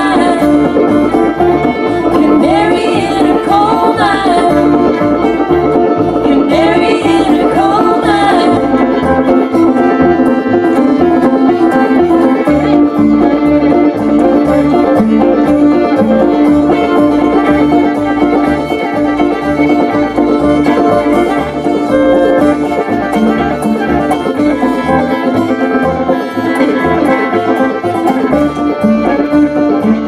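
Live bluegrass string band: women singing over upright bass, banjo and guitar for about the first eight seconds, then an instrumental break with banjo to the fore over a steady plucked bass beat.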